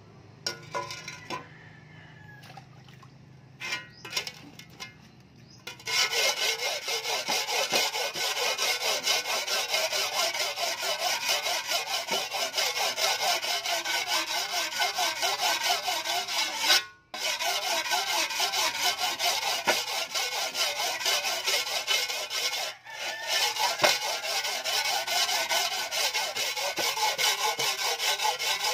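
A hand file rasping over the edge of a steel shovel blade in quick back-and-forth strokes, sharpening it. The first few seconds hold only a few light knocks as the tool is set against the blade. The steady rasping then starts about six seconds in and stops briefly twice.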